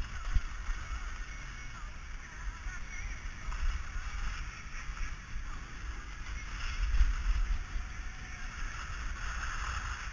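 Wind buffeting a GoPro's microphone during a downhill ski run, a gusting low rumble that swells about seven seconds in, over the steady hiss of skis sliding on snow.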